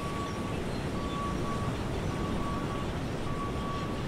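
Steady low rumble with an electronic beep repeating about once a second, each beep lasting most of a second; four beeps sound.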